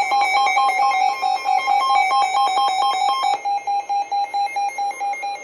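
Electronic weather-alert alarm, a harsh buzzy tone switching rapidly between two pitches. About three seconds in it changes to a single pulsing beep. It signals an incoming severe weather warning.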